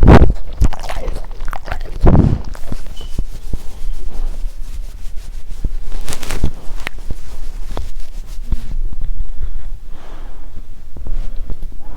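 A sleeping dog snoring and breathing right against the microphone, several breaths a few seconds apart, with small clicks and rustles between them.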